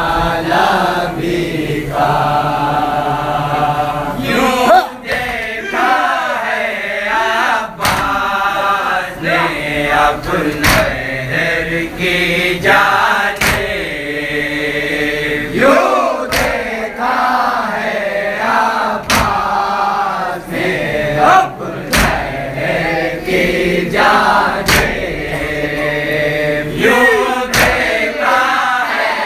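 A group of men chanting a noha, an Urdu mourning lament, in unison behind a lead reciter. Sharp chest-beating (matam) strikes land together about every three seconds under the singing.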